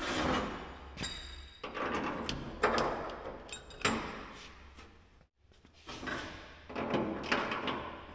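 Irregular metal clunks, knocks and scraping as a truck cab hanging from a forklift is guided down onto its new cab mounts and bolts are set, with a steady low hum underneath. The sounds drop out briefly just after the middle.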